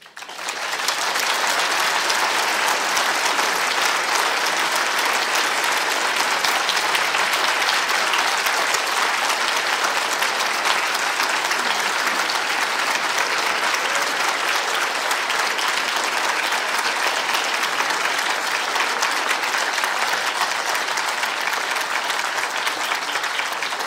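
Large audience applauding at length, breaking out suddenly and going on steadily and loudly.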